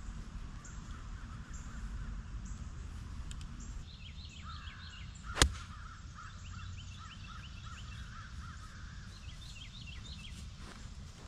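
A golf iron striking the ball once, a single sharp crack about five seconds in. Birds chirp repeatedly around it over steady low background noise.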